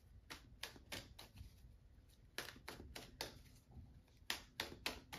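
Faint, irregular clicks and taps of tarot cards being handled and set down, about a dozen over a few seconds.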